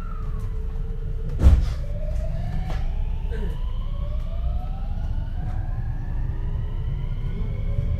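JR 521 series train's Mitsubishi IGBT VVVF inverter and traction motors whining, several tones rising steadily in pitch as the train accelerates, over a low running rumble. A single loud thump about a second and a half in.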